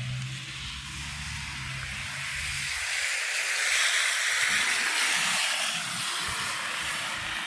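A vehicle passing on a snowy street: a hiss of tyres that swells to its peak about halfway through and then eases, with a low engine hum over the first few seconds.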